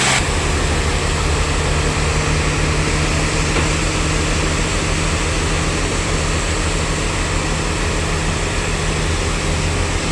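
Sawmill machinery running with a steady low hum.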